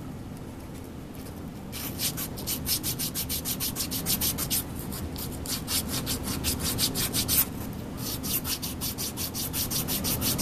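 400-grit sandpaper rubbed by hand around the end of an 8 mm ball screw shaft, quick back-and-forth scratchy strokes, several a second, in three bouts starting about two seconds in. It is buffing a slightly rough shaft end smooth so a new coupling can slide on.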